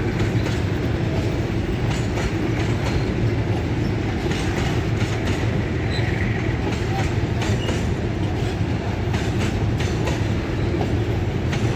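Freight train's covered hopper wagons rolling past: a steady rumble of steel wheels on the rails, with scattered clicks and knocks from the wheels and couplings.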